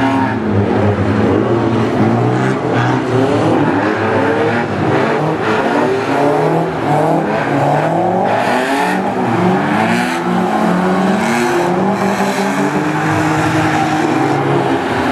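Several car engines revving up and down at once as the cars drift around the track, their pitches overlapping in repeated rises and falls.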